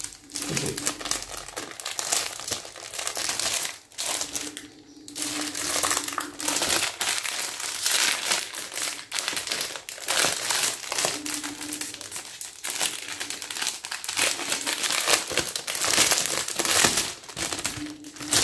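Plastic clothing packaging crinkling and rustling as clothes are handled and unwrapped, in an irregular run of crackles.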